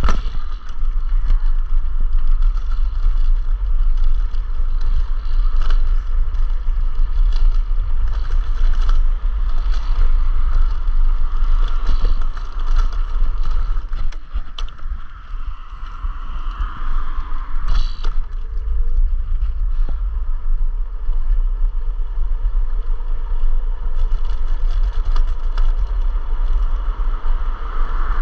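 Electric scooter ride: wind rumbling on the microphone over road noise, with scattered rattles and knocks from bumps, easing briefly about halfway through.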